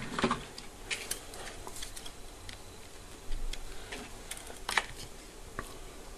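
Light, scattered plastic clicks and taps as the plastic housing of a Chevrolet Aveo dashboard clock is handled and its cover pulled off, about a dozen separate small knocks with a short cluster a little past the middle.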